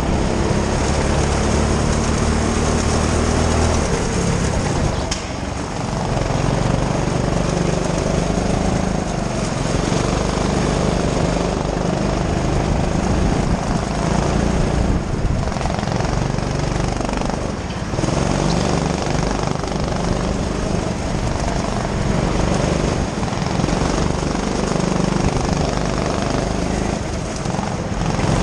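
Go-kart's small engine running hard under throttle, heard from the driver's helmet, with a few brief dips as the throttle is lifted for corners.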